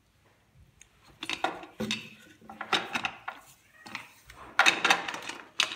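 A steel steamer plate being greased with oil: a spoon and fingers scrape and clink against the metal in about five short, irregular bursts.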